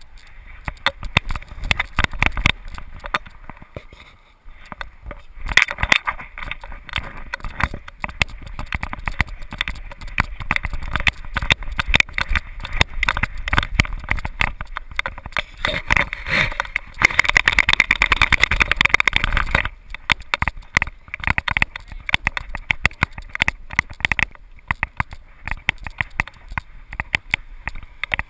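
Rapid, irregular clicking and rattling from a GoPro in its dog-harness mount, jostled with each step as the dog walks and trots. A louder rushing stretch comes about two-thirds of the way through.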